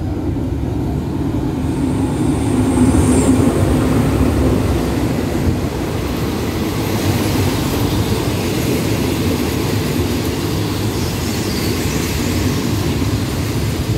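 Diesel-hauled local passenger train pulling slowly into a station. The locomotive passes close, loudest a few seconds in, and then the coaches roll steadily by with wheel rumble and a few faint high squeals.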